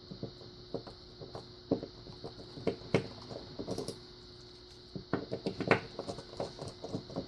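Scattered small metallic clicks and scrapes from a key and hand tools working a pin-in-pin cylinder lock held in a vise, as it is locked back up and handled. The clicks come irregularly, thickening into a quick run about five seconds in.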